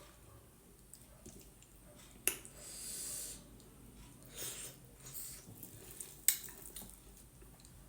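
Close-up eating sounds of a person eating white-maize dhido with gundruk soup: chewing and short hissy sips or breaths, with two sharp clicks, about two seconds in and again about six seconds in.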